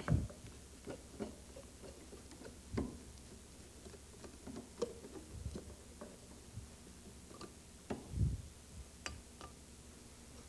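Scattered faint clicks and light metal knocks of a screwdriver working the screws on the back plate of the misting unit's electric motor, with a few soft thumps as the tool and hands bump the unit.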